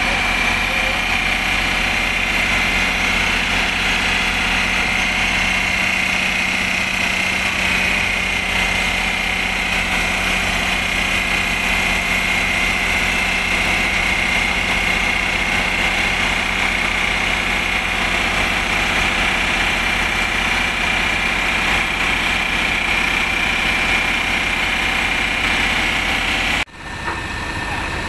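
JCB JS200 hydraulic excavator's diesel engine running steadily, with a constant high whine over a low hum. Its hydraulic pump is worn, growling and rough-running.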